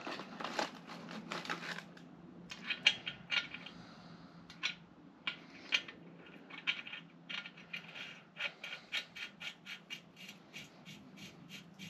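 Small metal parts clicking and rattling as the spindle nut is fitted onto a front wheel hub over its outer wheel bearing and washer. The clicks come unevenly at first, then in a quicker run of about four a second near the end, over a faint steady low hum.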